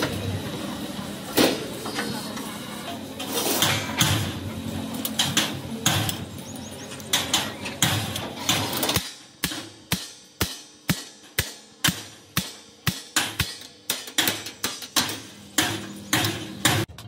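Hammer blows on metal. A busy stretch of workshop noise with scattered knocks gives way, about halfway through, to a steady run of sharp strikes at about two a second.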